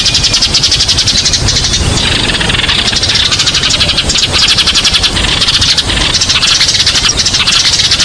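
Eurasian tree sparrows chirping in a dense, continuous chatter of rapid overlapping chirps, over a low background rumble.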